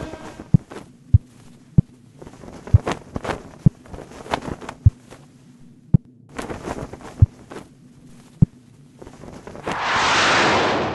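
Closing soundtrack: slow heartbeat-like thumps over a low hum. Near the end a loud rushing noise swells and then cuts off abruptly.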